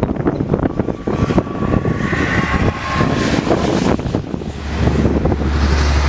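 Strong wind buffeting the microphone in gusts, with a steady low rumble coming in about two-thirds of the way through.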